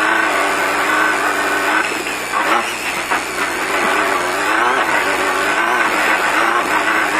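Off-road race car's engine heard from inside the cockpit, its note rising and falling with the throttle over a steady hiss of road and wind noise.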